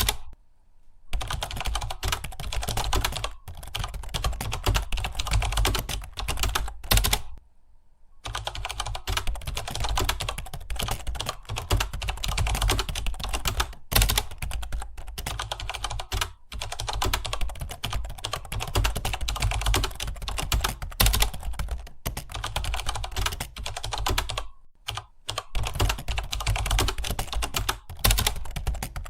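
Fast typing on a computer keyboard, a dense run of key clicks that stops briefly about a second in and again around eight seconds in.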